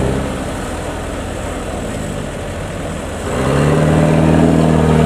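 Engine of a small rice-hauling farm tractor loaded with rice sacks, running and then revved up to a louder, steady higher speed about three seconds in, straining while stuck in deep, sticky paddy mud.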